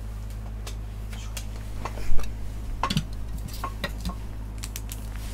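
Hard plastic card holders clicking and knocking as a thick trading card is handled and cased, with the sharpest knock about two seconds in. A steady low hum lies underneath.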